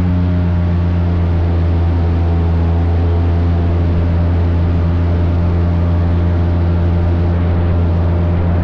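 Airboat engine and air propeller running at steady speed: a loud, even drone with a deep hum.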